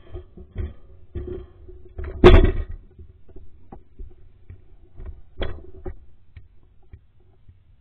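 Irregular crunching footsteps and handling knocks as a person hurries over railway track ballast, with one louder knock about two seconds in.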